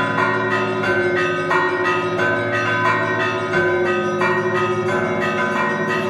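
Russian Orthodox monastery bells ringing: smaller bells struck in a quick repeating rhythm, several strokes a second, over the steady hum of larger bells.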